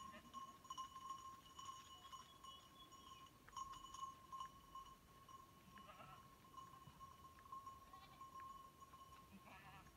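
Faint, distant bleating from a flock of sheep and goats: a call about six seconds in and another near the end, over a faint steady high tone.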